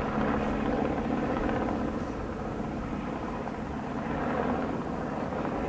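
Japan Maritime Self-Defense Force UH-60J (Black Hawk) helicopter in flight overhead. Its main rotor makes a steady, fast blade chop, with the sound of its twin turboshaft engines underneath.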